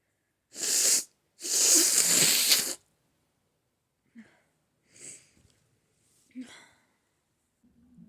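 A person with a cold sneezing: a short breathy burst, then a longer hissing one lasting over a second, followed by three faint short breaths.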